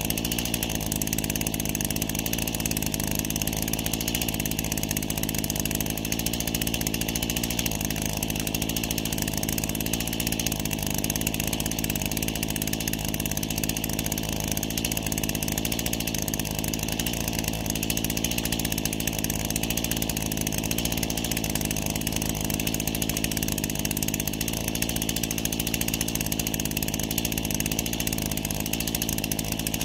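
Stihl MS 212 two-stroke chainsaw idling steadily, its engine note holding even without revving.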